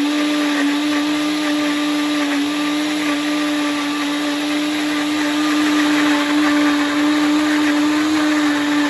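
Ninja BlenderDuo countertop blender running, puréeing chopped eggplant with water: a really noisy, steady motor hum that holds one pitch throughout.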